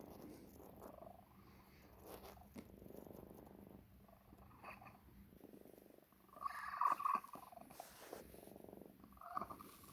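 Domestic cat purring with a wheezy, rough sound, broken by a louder short burst about two-thirds of the way in and a smaller one near the end. The cat's X-ray showed tumours in the throat, and the owner suspects a throat infection, cat herpes or asthma behind the wheezing.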